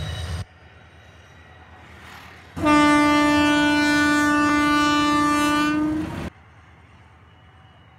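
Diesel locomotive's air horn sounding one long, steady blast of about three and a half seconds that starts and cuts off abruptly. A brief loud sound stops about half a second in, before a quiet stretch.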